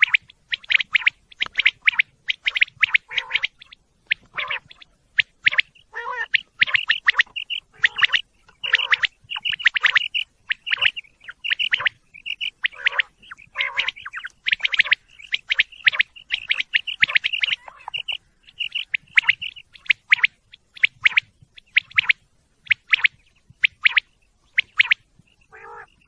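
Common quail calling: a fast, nearly unbroken run of short, sharp, high chirps repeated several times a second, dipping briefly near the end.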